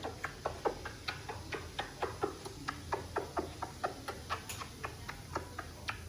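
A rapid, slightly irregular series of short, sharp clicks, about four to five a second.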